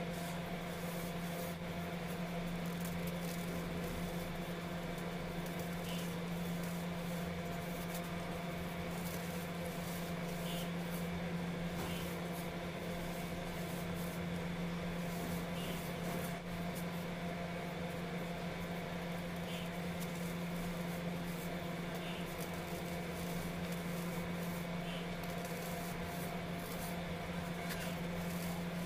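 Hands rubbing and crumbling loose baking soda powder: a soft, continuous rustling with small faint ticks, over a steady low hum.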